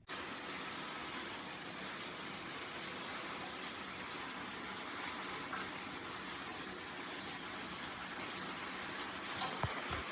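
Ceramic space heater's fan blowing with a steady rushing sound that comes on suddenly, with a few light knocks near the end.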